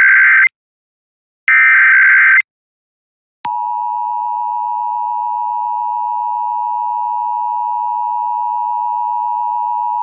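Emergency Alert System signalling. Two SAME digital data bursts, each a harsh warbling buzz about a second long, come a second apart. At about three and a half seconds they give way to the steady two-tone EAS attention signal (853 and 960 Hz), which holds on unbroken.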